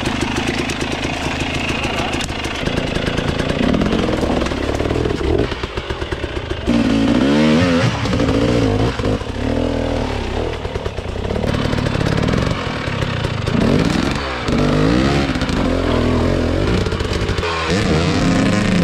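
Dirt bike engine revving up and falling back again and again as the throttle is worked over rocks and logs on a steep, technical climb.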